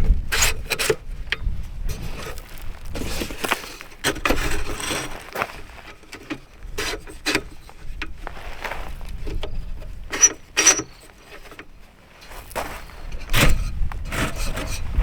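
Irregular knocks, rubs and scrapes of objects being handled, with wind rumbling on the microphone at the start and again near the end.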